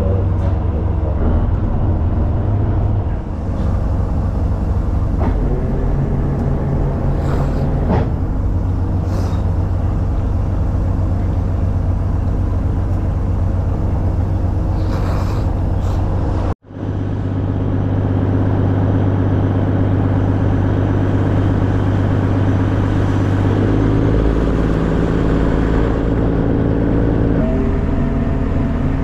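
A fishing boat's engine running steadily, a loud low hum, cut off suddenly for a moment about 16 to 17 seconds in before it returns.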